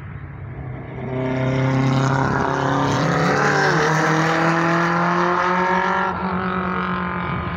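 Two racing cars under hard acceleration pass close by on a hill climb, their engines loud for several seconds with the pitch shifting as they go by. The sound drops off about six seconds in as they move away up the hill.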